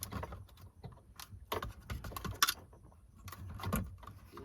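Scattered light clicks and taps of a small screwdriver and plastic car interior trim being handled while a retaining pin is pushed out.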